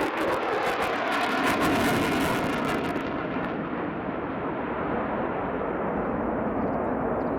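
Mitsubishi F-2 fighter's turbofan jet engine on a pass, with harsh crackling for about the first three seconds, then a steady, duller roar.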